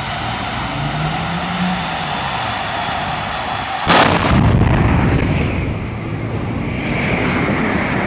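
A filling-station fire burning with a steady rushing noise, then one loud explosion about four seconds in, followed by a rumble that fades over a second or two.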